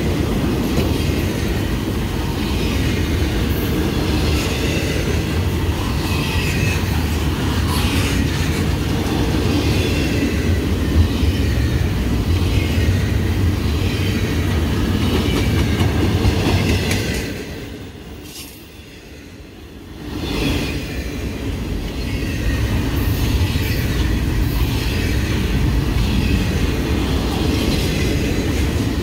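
Double-stack container well cars of a freight train rolling past close by: a steady low rumble of steel wheels on rail with repeated clacking as the trucks cross rail joints. It drops away briefly about two-thirds of the way through, then picks up again.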